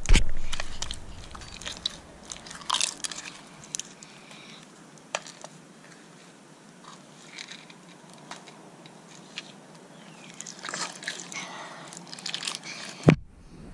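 Clear glitter slime packed with beads and charms being squeezed and pulled by hand: wet squishing with scattered crackles and small pops. There is a loud thump right at the start and another near the end.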